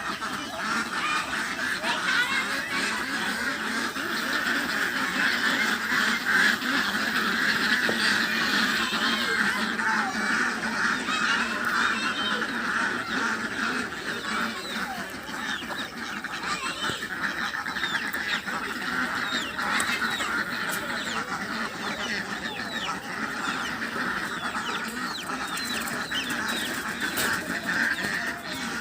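A flock of domestic geese honking and calling without a break, with many calls overlapping.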